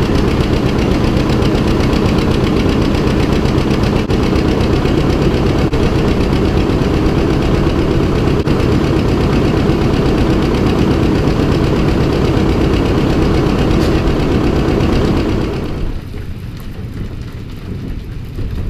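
Tractor engine running steadily. Near the end the engine sound drops away, leaving wind noise.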